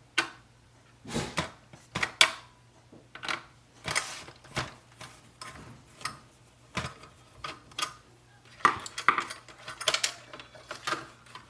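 Irregular clicks and clatter of a screwdriver and small metal and plastic parts as a screw is taken out of the Epson WF-2860 printer's innards, about a dozen sharp knocks spread unevenly.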